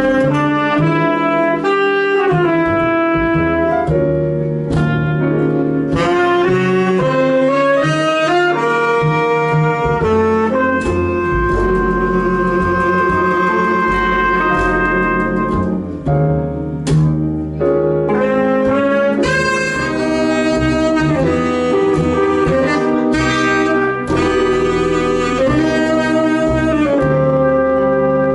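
Live jazz band playing a tune, with a saxophone carrying the melody over piano, bass and drums.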